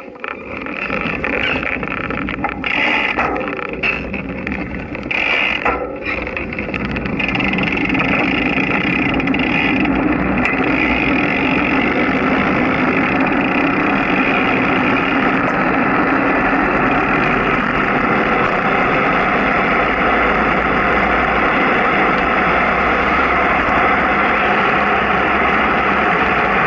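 Vehicle pulling away from almost a standstill and gathering speed downhill. Its noise is uneven for the first several seconds, then settles into a steady rush of travel noise.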